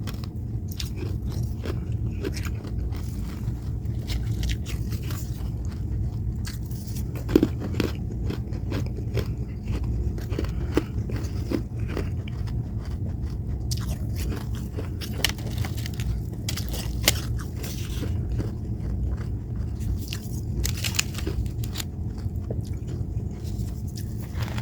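Freezer frost being bitten and chewed, with irregular crunching and crackling mouth sounds, over a steady low hum.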